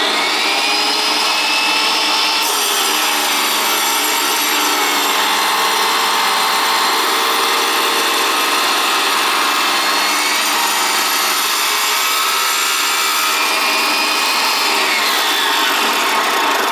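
Small 4-inch wet tile saw with a water-fed diamond blade running loud and steady while a ceramic subway tile is fed through it. Its whine slides lower a couple of seconds before the end.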